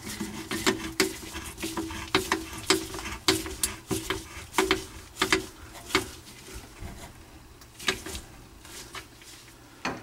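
A screwdriver turning the screw of a hose clamp on a dishwasher drain hose, tightening it onto a garbage disposal inlet. It makes a run of short scraping clicks, about two a second, which thin out to a few strokes in the last few seconds.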